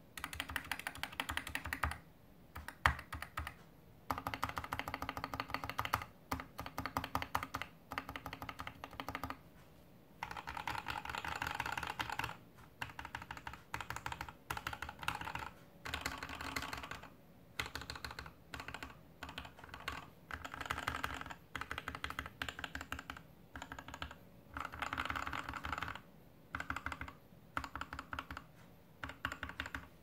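GK61X mechanical keyboard with lubed and filmed Gateron Red Ink V2 linear switches, a stainless steel plate and DSA keycaps, resting on a felt desk mat: modifier keys pressed in fast runs of keystrokes, each run lasting a second or two with short pauses between.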